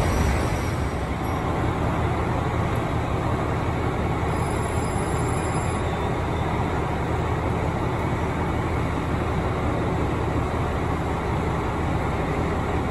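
JR Hokkaido 733 series electric train standing at a station platform, its equipment giving a steady low hum.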